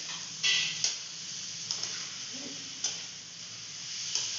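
Potatoes, tomatoes and spice paste frying in oil in a metal kadai: a steady sizzle, with a metal spatula clinking and scraping against the pan about five times as it is stirred.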